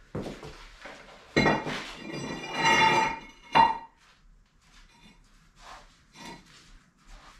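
A steel plate scraping and clanking against the concrete floor and the machine base as it is worked under a heavy lathe. A long ringing metal scrape starts about a second and a half in, a sharp clank follows about a second later, and a few lighter knocks come after.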